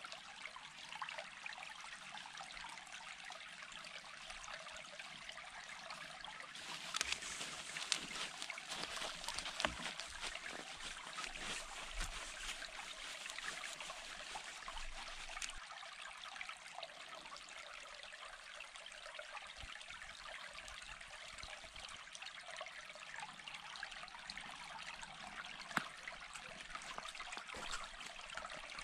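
Steady rushing hiss of a small forest stream. From about 7 to 15 seconds in it is joined by louder rustling and light clicks from hands working moss into the gaps of a dry-stone wall.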